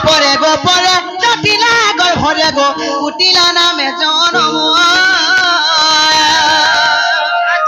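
A voice singing into a microphone, with hand-drum strokes through the first three seconds. From about three seconds in, the voice holds one long, wavering note.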